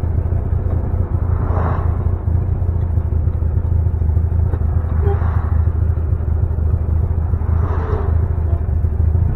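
Interior sound of a custom 1960 VW Beetle under way: its fuel-injected air-cooled flat-four engine and high-performance exhaust give a steady low drone, mixed with road noise inside the cabin. Three brief swells of noise come as cars pass.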